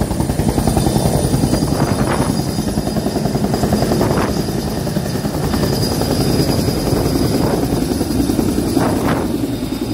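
Bell 412 helicopter close by, lifting from the helipad and climbing away: the four-blade main rotor's fast, steady beat under a high turbine whine, with brief swells about 2, 4 and 9 seconds in.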